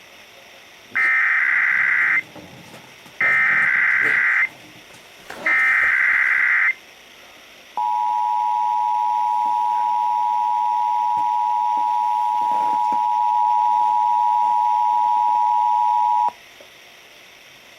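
Emergency Alert System test tones over AM radio: three bursts of the SAME digital header, each about a second long with short gaps between, then the two-tone EAS attention signal, a steady dual-pitched tone held for about eight and a half seconds and then cut off sharply.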